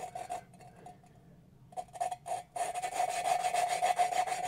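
A valve being lapped into its seat in a Citroën 2CV 425 cylinder head: a lapping stick is spun back and forth between the palms, grinding the valve against the seat through lapping paste with a gritty rasp and a ringing scrape. A few short strokes, a pause of about a second, then the strokes pick up and run on continuously through the second half.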